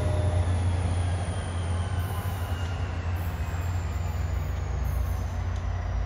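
NJ Transit GP40PH-2B diesel locomotive running with a steady low rumble as it approaches slowly. A thin, high wheel squeal slowly falls in pitch over it.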